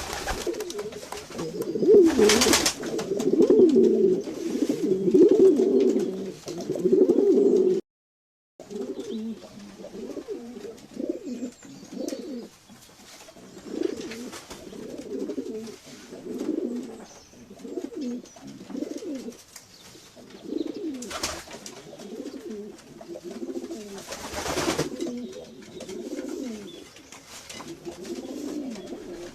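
Several domestic pigeons cooing, their low calls overlapping, loud at first and then softer after the sound cuts out briefly about eight seconds in. A few short noisy bursts break in at times.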